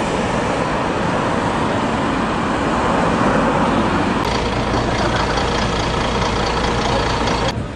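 Street traffic noise with a city bus's engine running close by, its low hum growing stronger about four seconds in.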